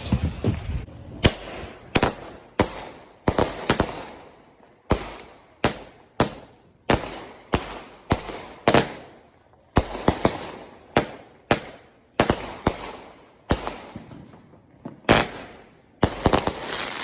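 Consumer fireworks going off in a long series of sharp bangs, roughly one or two a second, each fading out before the next.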